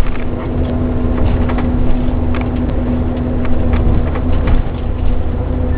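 Inside a Mitsubishi Fuso Aero Queen I coach on the move: steady engine and road drone with a constant low hum and scattered small rattles and clicks.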